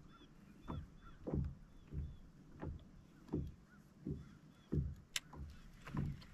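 Small waves slapping against the hull of a bass boat, a low, hollow thump about every two-thirds of a second. There are faint high chirps in the first couple of seconds and one sharp click about five seconds in.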